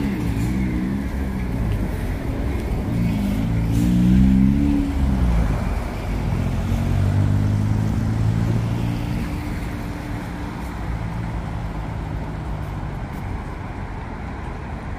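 Road traffic: motor vehicle engines accelerating past, their pitch rising and falling several times. The traffic is loudest about four seconds in, then settles into a steadier engine noise that fades in the second half.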